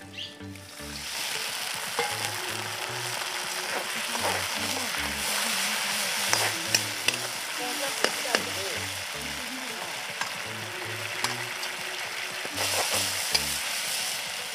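Water poured into a hot kadhai of fried onion-tomato masala on a wood fire, sizzling loudly from about a second in, with a metal ladle clinking and scraping against the pan as it is stirred. This is water going in to cook the Maggi noodles.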